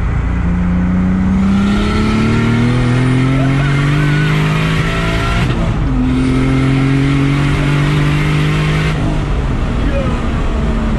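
Turbocharged BMW E30 with a swapped M52 straight-six accelerating hard, heard from inside the cabin. The engine note rises for about five seconds, breaks briefly for a gear change, rises again, then drops to a steadier, lower note near the end.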